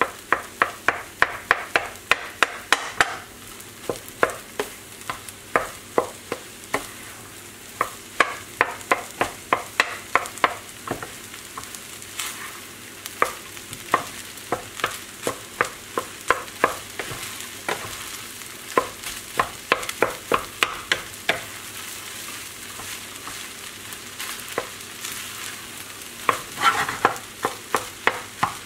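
Wooden spatula scraping and tossing fried rice in a frying pan, in runs of quick strokes about four a second, over a steady sizzle of frying.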